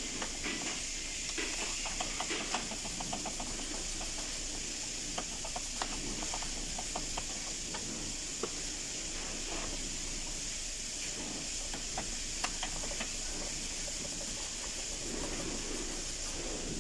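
Ratchet wrench clicking in short runs of quick clicks, thinning out later, as the 10 mm intake-manifold bolts are loosened, over a steady high hiss.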